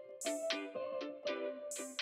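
Background music: a run of plucked, guitar-like notes with a light percussion hit about every second and a half.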